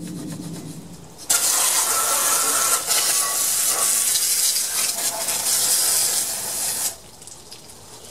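Garden hose spray nozzle jetting water onto a garden tractor's engine to wash off caked-on grime: a steady hiss that starts about a second in, runs for about five and a half seconds, then cuts off suddenly.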